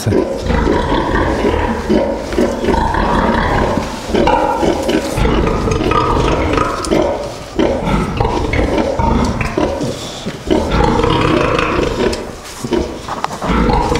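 Pigs screaming loudly and continuously, a dense squealing din without a break. These are F1 crossbred pigs, which scream like this nearly all the time and go quiet only when fed, not out of hunger.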